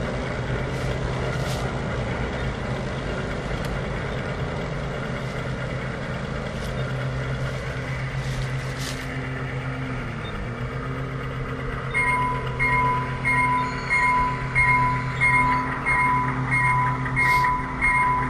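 G scale model train running along outdoor track, a steady hum from its motors and wheels with a short dip in pitch about ten seconds in. From about twelve seconds a bell starts dinging, a little under twice a second.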